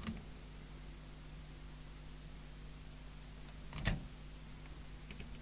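Steady low electrical hum, with a click at the start, a short knock about four seconds in and a couple of faint ticks near the end.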